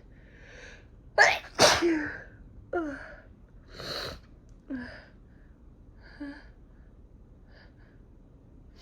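A woman sneezes twice in quick succession about a second in. The sneezes are set off by sniffing chhinkni, a herbal sneezing powder. Softer breathing sounds follow.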